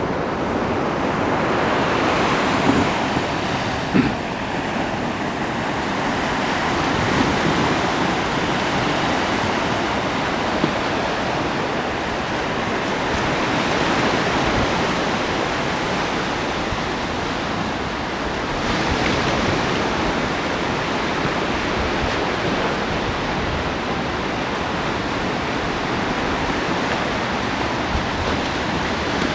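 Ocean surf, a steady wash of breaking waves that swells and eases every several seconds, with a few short clicks.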